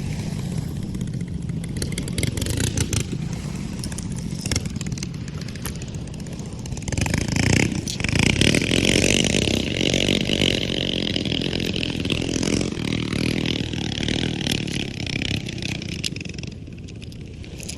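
A motor engine running steadily, swelling louder about seven seconds in and easing off near the end.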